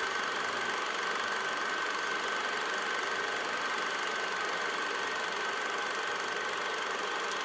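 Steady mechanical running and clatter of a film projector, with a constant high whine.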